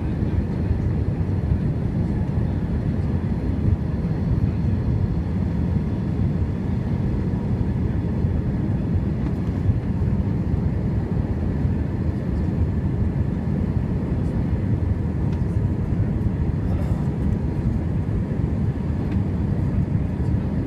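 Steady low rumble of engine and airflow noise heard inside the cabin of an Airbus A321 airliner during final approach and landing, with a faint steady whine above it.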